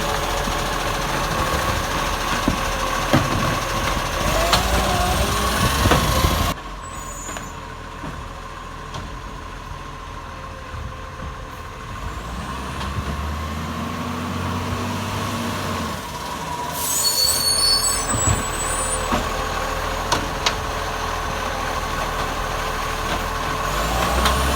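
Acco garbage truck running, its engine made loud by an exhaust leak, with a steady whine over it. The sound drops away suddenly about six seconds in and builds back up, with a short hiss about two-thirds of the way through.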